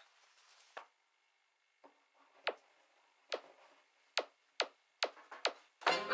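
Square tins knocked down and shifted on a tabletop: about eight short, sharp knocks, irregular at first and then roughly two a second. Accordion-like music starts right at the end.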